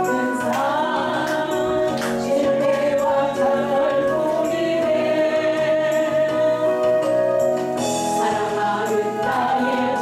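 A woman singing a Korean gospel praise song through a handheld microphone over a backing track, holding one long note in the middle.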